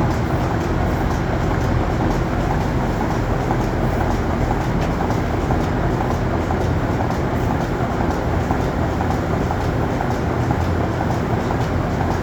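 Steady, even mechanical running noise of a pipeline milking system under way, the vacuum pump and pulsators working, with faint repeated ticks over the rumble.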